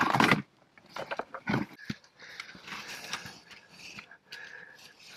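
Caver breathing hard in short breaths while crawling through a tight rock squeeze, with scrapes and knocks of the suit and gear against the rock, loudest right at the start.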